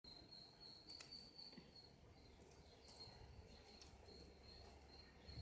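Near silence: faint background tone with a thin, steady high-pitched whine that comes and goes, and a small tick nearly four seconds in.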